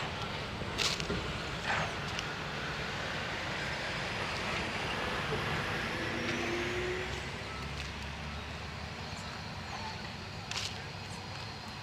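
A motor vehicle passing by, its noise building to its loudest mid-way and then fading.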